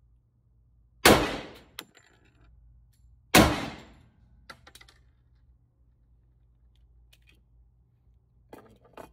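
Two pistol shots from a 1911-style handgun, about two and a half seconds apart, each ringing off briefly in an indoor range booth. A few light clicks of gun handling come near the end.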